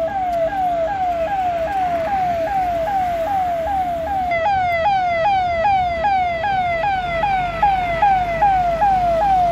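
Emergency vehicle siren yelping: a pitch that drops quickly and repeats about three times a second. A second, higher siren joins about four seconds in, and a low engine rumble grows near the end as a truck comes close.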